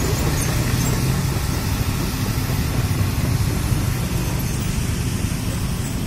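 Hitachi hydraulic excavator's diesel engine running steadily as the machine lifts its boom, a continuous low-pitched hum.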